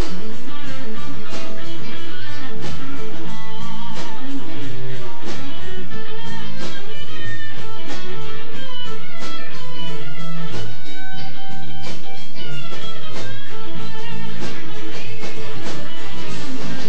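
Live electric blues band playing, with a Telecaster electric guitar to the fore over a steady low end and regular drum strokes.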